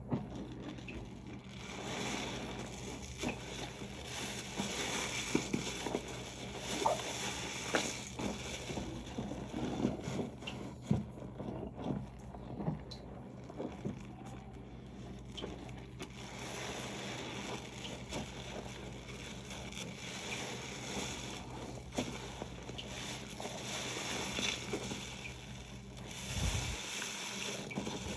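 Soapy sponge being squeezed and worked with dish soap: wet squishing with irregular crackling suds and small clicks.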